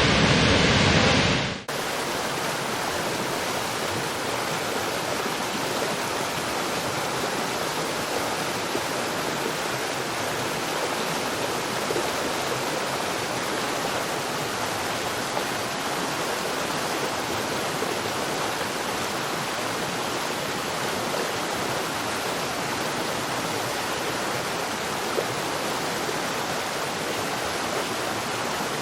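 Waterfall: steady rushing of falling water. In the first two seconds it is preceded by a louder, different sound that cuts off abruptly.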